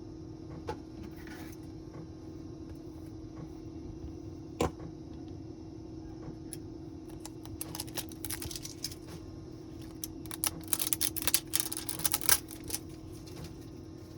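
Small sharp clicks and taps of hand tools and phone parts being handled on a work surface: a single knock about a third of the way in, then quick clusters of clicks, thickest in the last third. A steady low hum runs underneath.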